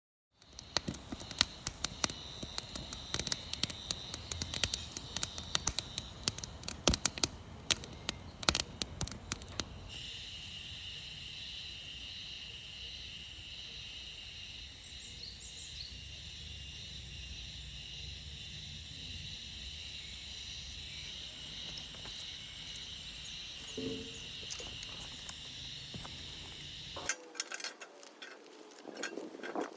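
Insects chirping steadily in a high, even chorus. Dense sharp crackling clicks sound over it for about the first ten seconds, and a few more come near the end.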